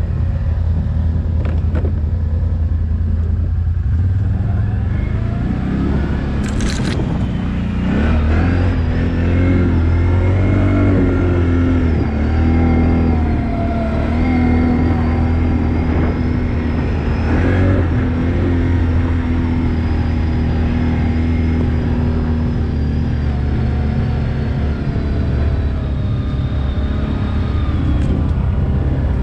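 ATV engine running while riding off-road, the revs rising and falling several times as the throttle is worked, with a thin high whine over it.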